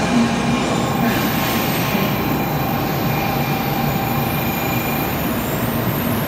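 JR West N700-series Shinkansen train pulling slowly along the platform: a steady rush of wheel and running noise with faint steady whining tones. A high whine stops near the end.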